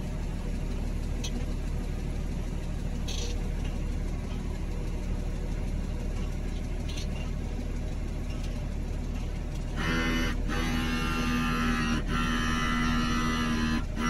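New Holland tractor's engine running steadily, heard from inside the cab as it drives across the field spreading slurry. About ten seconds in, music with held notes comes in over the engine.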